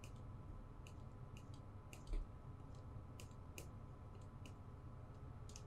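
Faint, irregular light clicks and taps from painting at the computer with a brush tool, a dozen or more spread unevenly, with one soft low bump about two seconds in. A steady low electrical hum runs underneath.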